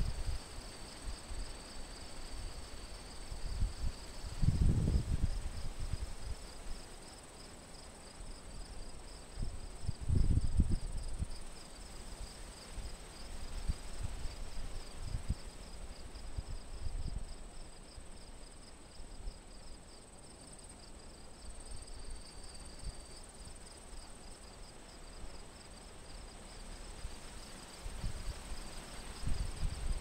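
Steady high insect chorus, a continuous fast-pulsing trill with a thinner steady whine above it. Low wind buffets on the microphone break in about five and ten seconds in and again near the end.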